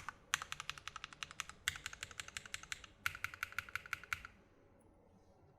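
Fast typing on a Sneakbox MGA Standard Alice-layout mechanical keyboard with SP Star Meteor switches, aluminum plate and GMK keycaps, a clacky, firm keystroke sound. Three quick runs of keystrokes with short pauses between, stopping about four seconds in.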